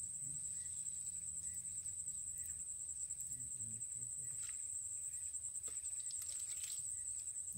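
Steady, high-pitched insect trill with a fine rapid pulse, over a faint low rumble, with soft faint chirps about once a second.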